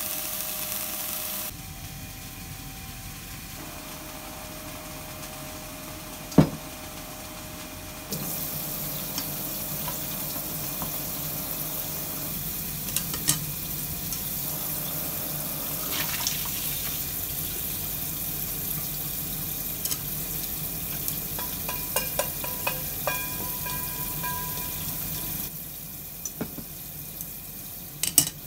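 Kitchen tap running into a stainless-steel sink as a metal pot is rinsed, with scattered clinks and knocks of the pot and utensils. At the very start, greens and mushrooms sizzle briefly in a frying pan.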